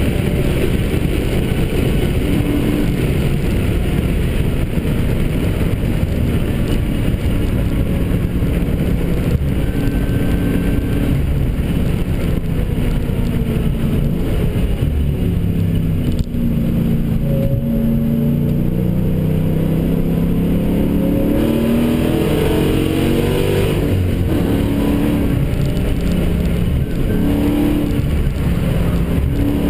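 Dodge Challenger SRT8's V8 engine heard from inside the cabin at speed, with road and wind roar. About halfway through the revs drop for a few seconds, then climb steadily again as the car accelerates.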